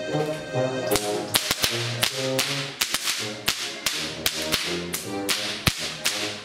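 Many sharp, loud cracks, several a second, in time with folk music whose held notes sound underneath, from a Bavarian folk-dance group's percussive routine.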